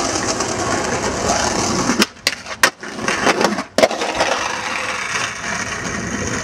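Skateboard wheels rolling over stone paving with a steady gritty rumble. Between about two and four seconds in, several sharp clacks of a board striking the pavement break the rolling.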